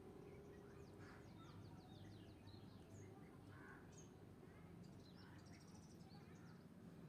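Near silence with faint birds chirping in the background: quick, high chirps and trills coming in short clusters throughout, over a faint steady low hum.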